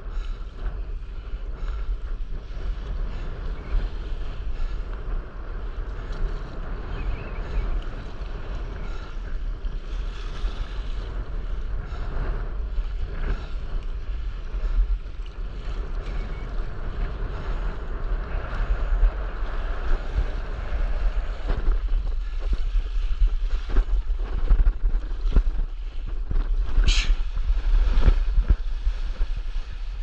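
Wind buffeting the microphone over choppy sea water lapping and splashing around a stand-up paddleboard. In the last several seconds come sharper, repeated splashes as the board's nose slaps through the water.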